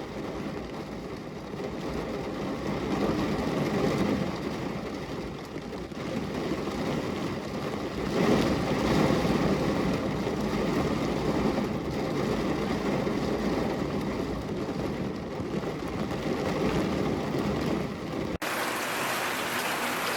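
Steady rushing water noise that swells and eases every few seconds. Near the end it cuts abruptly to a brighter, hissier water sound.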